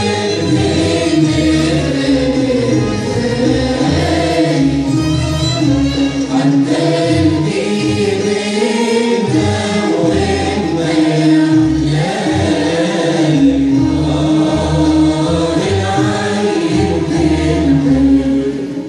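Live performance by an Arabic music ensemble: several voices singing together in chorus over violins, oud and qanun.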